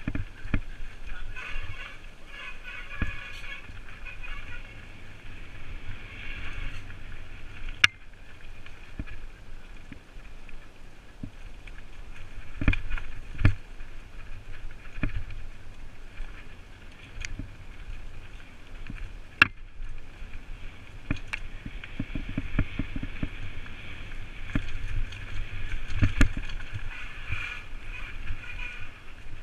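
Mountain bike ridden fast down a dirt forest singletrack, heard from a helmet-mounted camera: tyres running over dirt and leaves with a steady low rumble, the bike rattling, and a few sharp knocks as it hits bumps.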